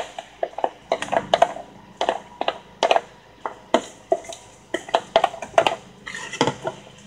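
A utensil tossing lettuce in a stainless steel mixing bowl: quick, irregular clinks of the utensil against the metal bowl, several a second, with the leaves rustling.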